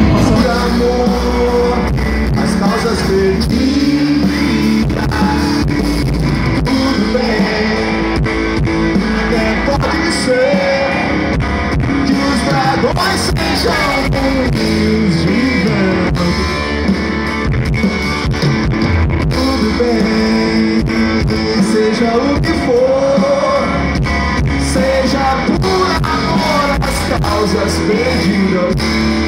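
Live rock band playing through a concert PA: guitar over a steady drum kit beat, heard from within the audience.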